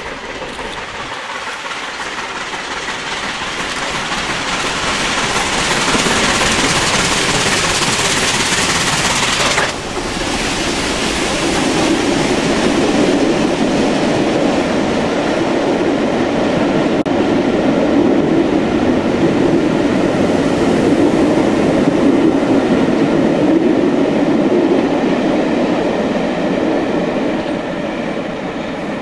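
Southern Railway Bulleid Battle of Britain class 4-6-2 steam locomotive 34067 Tangmere approaching and passing with its train, growing louder over the first few seconds. A loud steam hiss cuts off suddenly about ten seconds in, and the coaches then roll by with the clickety-clack of wheels over rail joints.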